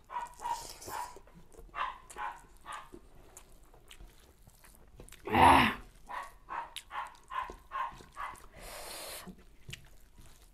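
A dog barking outside in a run of short, faint, repeated barks, with one much louder bark about halfway through.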